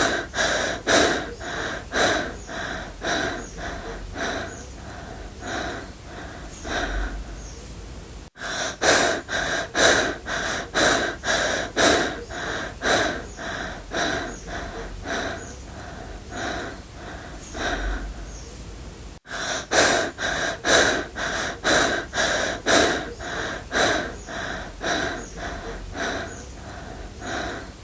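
A person breathing fast and hard, panting in and out about two breaths a second, as someone running out of breath does. The panting eases a little, then cuts off and starts again at full strength twice: the same stretch of breathing is looped.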